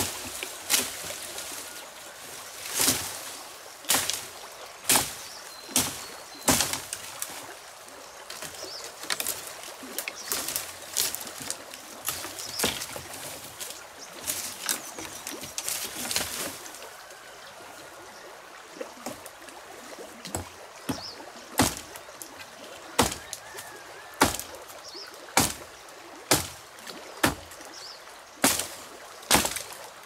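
Steady rain hiss broken by irregular sharp taps, roughly one a second. The taps thin out for a few seconds past the middle, then come loud and close together again near the end.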